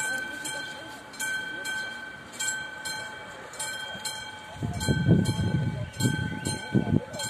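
Level-crossing warning bell ringing, an electronic ding repeating somewhat under twice a second over a steady high tone, as the crossing signals a train's approach. About two-thirds of the way through, a louder, uneven low rumbling comes in for a couple of seconds.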